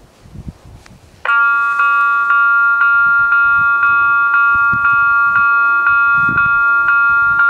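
Level crossing warning bell starting up about a second in and then ringing loud and steady, re-struck about twice a second. It warns that a train is approaching and the crossing is closing.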